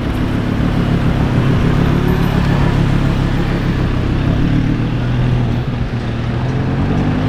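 Second-generation Audi R8 Spyder's 5.2-litre V10 running at low revs as the car rolls slowly past and away, its note rising a little about four seconds in.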